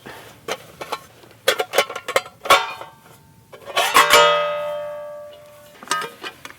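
Camping mess kit pieces clinking and knocking as they are handled and taken apart, with one piece struck about four seconds in and ringing out for over a second.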